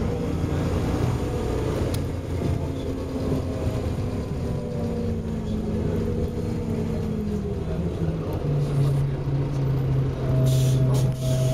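Volvo Olympian double-decker bus's engine running while under way, heard from the upper deck. The engine note falls slowly through the middle, then settles into a steady, louder low hum near the end.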